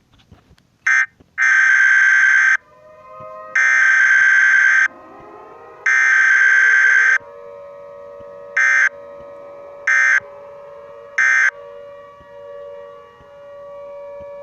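Emergency alarm sound effects. A harsh buzzer sounds in loud blasts, one short, then three long, then three short. Under it a siren winds up in pitch twice and holds a steady wail.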